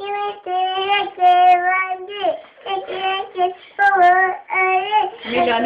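A high voice singing a melody alone, without instruments, in held notes broken by short pauses.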